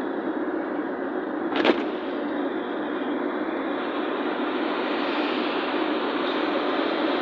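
Steady tyre and engine noise inside a car's cabin at highway speed, growing slightly louder toward the end. A single sharp click stands out about a second and a half in.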